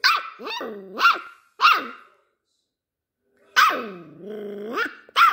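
A small puppy's bossy little barks: four quick yaps in the first two seconds, then a longer drawn-out, growly bark with a wavering pitch, and another yap at the end.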